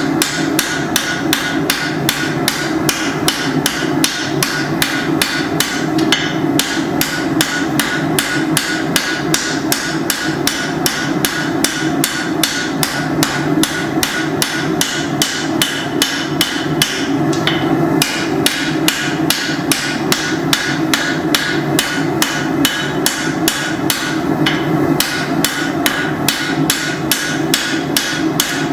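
Hand hammer striking hot steel on an anvil while forging a machete blade: an even run of blows, about three to four a second. A steady rushing noise runs underneath.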